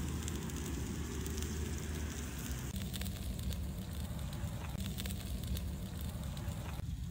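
Whole fish grilling over a charcoal grill, a steady crackle with scattered sharp pops that come thicker from about three seconds in, under a low rumble of wind on the microphone.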